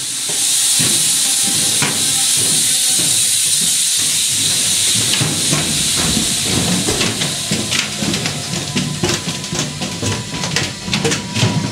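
Loud steady hiss inside an EP20 electric locomotive's machine room. It eases off after about eight seconds. Footsteps and small knocks can be heard as people walk through the narrow corridor, and a low rumble sits underneath.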